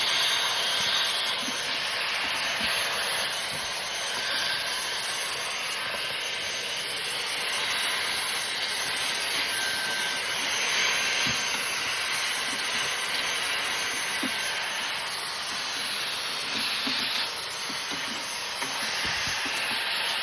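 Vacuum cleaner running steadily, a hissing rush of air as it vacuums out the inside of a disc repair machine; it cuts off at the end.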